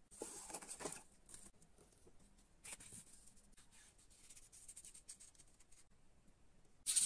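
Cardboard and paper rustling and scraping as small cardboard pieces are handled and slid into place: a scrape about a second long at the start, a short one about three seconds in, and a louder brief one near the end.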